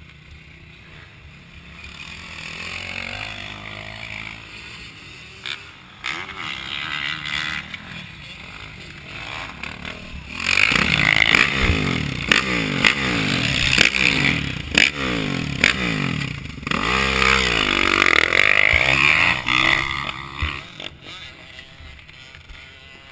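Motocross bike engine heard from on the bike, running quietly at first. About ten seconds in it grows loud and revs up and down repeatedly for several seconds, then settles back toward the end.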